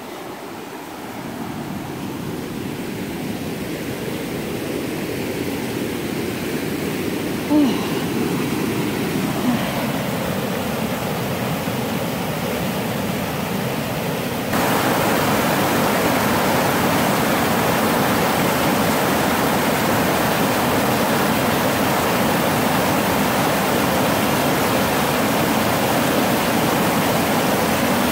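Rushing whitewater of river rapids tumbling over rock, a steady, even noise that grows louder as they are approached and jumps louder about halfway through.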